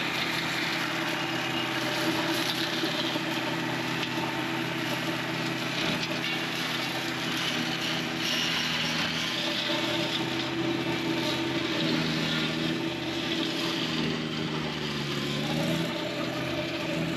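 John Deere 1025R compact tractor's three-cylinder diesel running under load, driving a PTO flail mower that is shredding blackberry vines. The engine note sags and then picks back up near the end.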